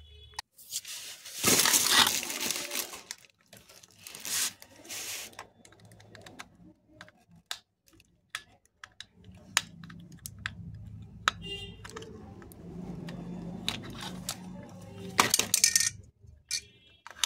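Handling noises of unpacking a small plastic desktop vacuum cleaner: loud crinkling rustles of plastic packaging in a few bursts, with many sharp clicks and knocks of the plastic body being handled. A low, uneven rumble runs through the second half.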